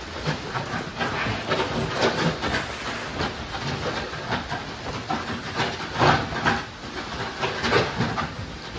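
Steel wheelbarrow of wet concrete rattling over rebar mesh and being tipped, the concrete sliding out with a wet scrape. There are irregular clatters and several louder knocks, a few seconds apart.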